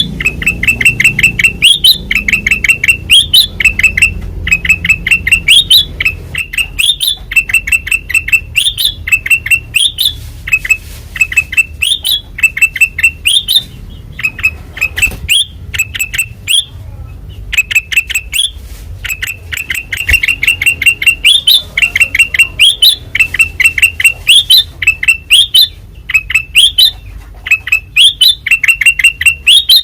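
Kutilang emas bulbul singing loudly and continuously, repeating a phrase of quick sharp chattering notes that each end in a rising upslurred note, with a brief pause about halfway through.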